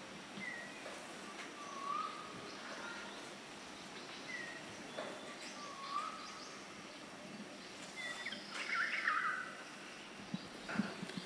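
Small birds chirping in short, repeated calls, busiest about nine seconds in, over a faint steady hiss, with a few soft knocks near the end.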